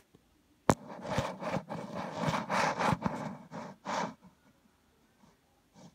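A sharp click, then about three seconds of rubbing and knocking handling noise as a phone is fitted against a telescope eyepiece. It stops a little after four seconds in.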